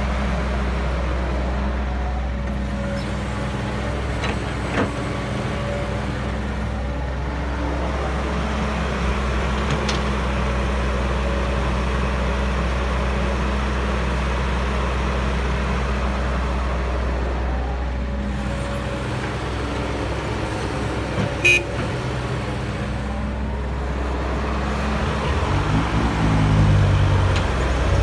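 Diesel engine of a CAT E315B hydraulic excavator running steadily under work, with a few sharp knocks and clanks. About three seconds from the end the engine note rises and falls as it works harder.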